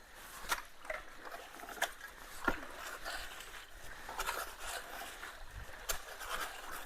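Wet leaves, sticks and debris being pulled out of a clogged culvert: irregular splashes, rustles and sharp knocks over running water.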